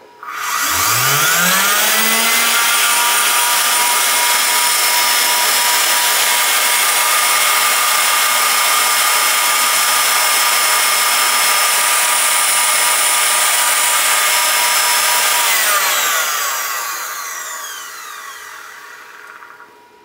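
Brushed vacuum cleaner motor, fitted with homemade ceramic ball bearings greased with graphite, running off a bench power supply at 80 volts. It spins up with a rising whine about half a second in, then runs steady at full speed. About sixteen seconds in the power is cut and it coasts down with a falling whine that fades away.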